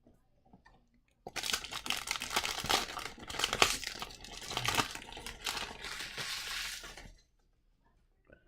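Wrapper of an Upper Deck hockey card pack being crinkled and torn open, a dense run of crackling that lasts about six seconds and stops suddenly.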